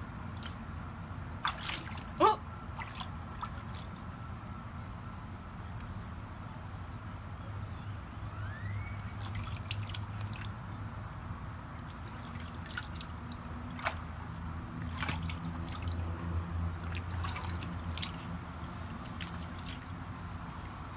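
Siberian husky pawing and sloshing in shallow ice water in a plastic kiddie pool: irregular splashes and drips, with one louder sharp sound about two seconds in, over a faint low steady hum.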